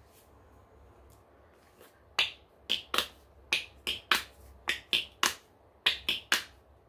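Fingernails tapping on a small black container: after a quiet start, a run of about a dozen sharp, crisp taps, roughly two a second and unevenly spaced.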